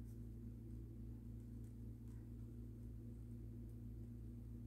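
Faint, steady room hum made of several low tones held together, with a few faint ticks.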